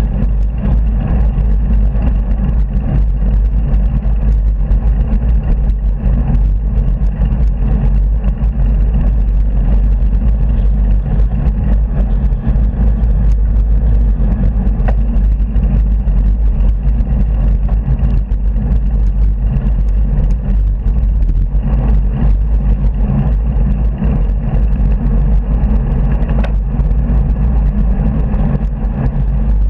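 Steady wind and road rumble on a handlebar-mounted camera of a bicycle riding beside a dual carriageway, mixed with cars passing in the next lanes.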